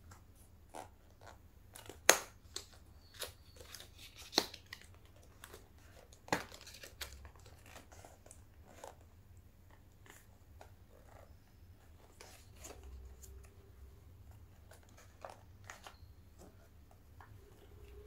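Hands working at a hard, sealed accessory box: scattered clicks and taps with crinkling of packaging, the sharpest snaps about two, four and six seconds in.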